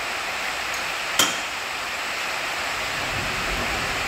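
A steady, even hiss of workshop noise, with a single sharp metal clink about a second in.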